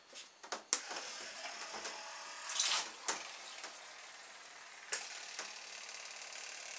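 Small electric motor salvaged from a solar vent whirring as it drives the propeller of a polystyrene toy boat, churning the bath water with a steady fizzing hiss from under a second in. There are a few handling clicks at the start, a louder splashy burst about two and a half seconds in and a sharp knock about five seconds in.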